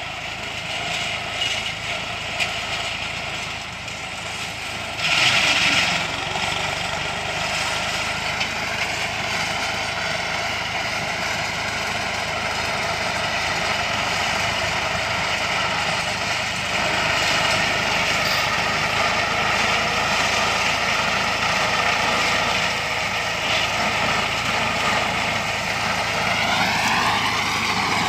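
Small engines of hay-mowing machines running steadily while cutting grass. There is a brief rushing burst about five seconds in, and the engine pitch rises near the end.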